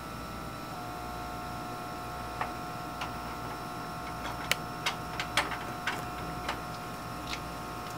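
Steady hum of the tissue culture hood's blower, with several steady tones and one more tone joining under a second in. From about two seconds in comes a scatter of light clicks and taps as plastic flasks and caps are handled.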